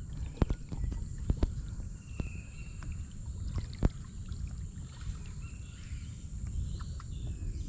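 Kayak paddling: paddle strokes in the water with a few sharp knocks of the paddle, about half a second in, near one and a half seconds and near four seconds, over a steady low rumble.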